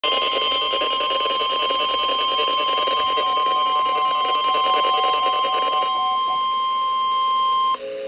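NOAA Weather Radio warning alarm tone, a single steady high tone of about 1050 Hz, coming through a Midland weather alert radio's small speaker with a buzzy, distorted edge. It signals that a warning follows, and it cuts off suddenly near the end.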